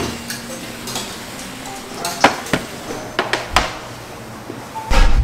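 Ceramic and earthenware dishes clinking and knocking as a serving tray and small side-dish bowls are handled and set down: a handful of sharp separate clinks. Near the end a loud low noise comes in.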